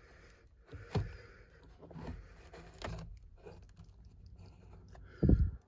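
Faint clicks and scrapes of plastic being handled as the driver's airbag module is worked loose from a Jeep Wrangler steering wheel, with a short, louder low thud near the end.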